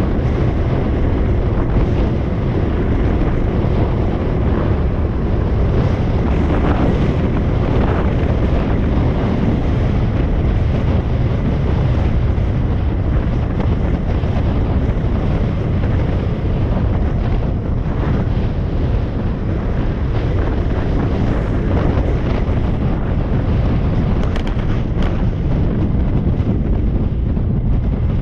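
Wind buffeting the microphone of a camera riding on a moving motorbike: a steady, loud, low rumble with no breaks.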